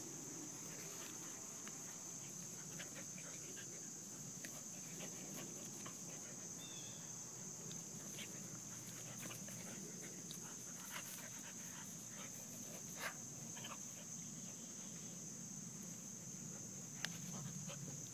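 An adult dog and a puppy play-fighting, with faint low growling and scuffling, over a steady high drone of insects.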